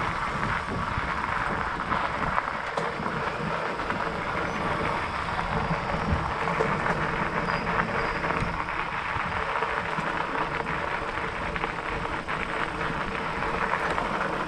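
Fat bike rolling along a dirt forest trail: steady tyre noise on the ground with many small rattles and ticks from the bike, and a low wind rumble.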